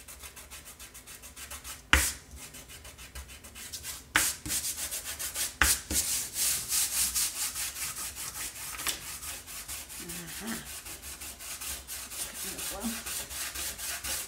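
Fingertips rubbing dried masking fluid off watercolour paper in quick, rhythmic back-and-forth strokes, a papery scrubbing hiss. A few sharp knocks break in, the loudest about two seconds in.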